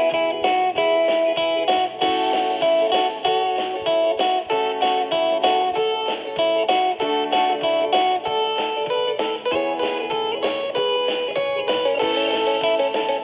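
Background music: a plucked guitar playing a steady run of quick picked notes.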